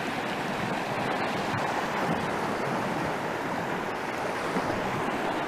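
Steady rush of a mountain creek running over boulders and small rapids.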